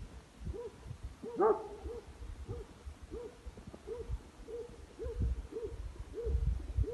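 A dog barking over and over at an even pace, about one and a half barks a second, with one louder bark about a second and a half in.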